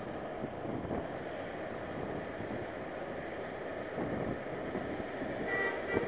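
Steady road and wind noise of a motorcycle riding behind a tour bus, with a brief horn tone sounding near the end.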